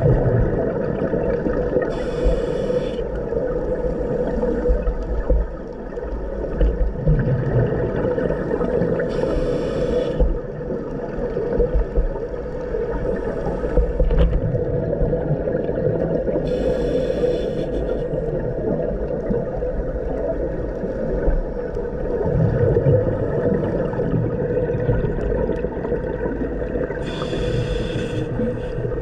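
Scuba diver's underwater breathing heard through a camera housing: a steady muffled rumble and hum, with a hissing, bubbling regulator exhale about every seven seconds, four times.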